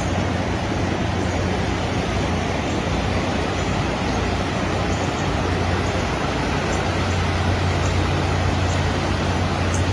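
Steady rushing noise of floodwater pouring over a bridge, with a low steady hum underneath that grows a little louder near the end.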